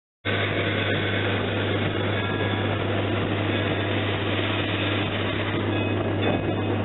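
Steady hiss and low hum of the L&N 152 steam locomotive heard from inside its cab, starting abruptly about a quarter second in.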